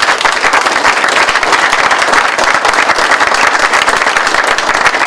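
A room full of hockey players and staff applauding: loud, dense, fast clapping that holds steady throughout.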